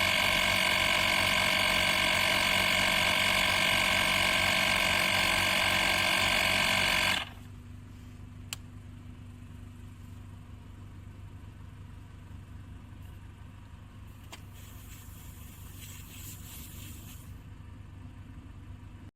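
AstroAI 12V portable tire inflator running with a steady motor whine and buzz, cutting off abruptly about seven seconds in; a single click follows a moment later.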